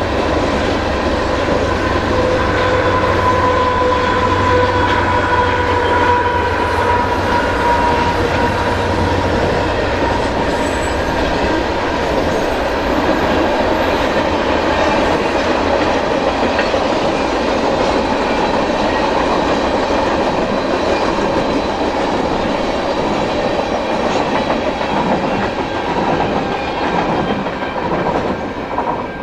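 Freight cars of a Canadian Pacific mixed freight train (boxcars and tank cars) rolling past on steel wheels, a loud, steady rumble. A thin high ringing wheel squeal runs through the first ten seconds or so. The sound falls away near the end as the last cars go by.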